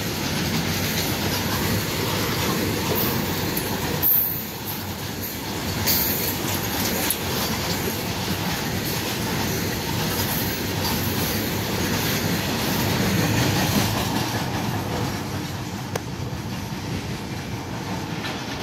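Freight train of covered boxcar wagons rolling past at speed: steady rumble and clatter of wheels over the rail joints, with a few brief high-pitched wheel squeals. The sound eases off a little near the end as the brake van goes by.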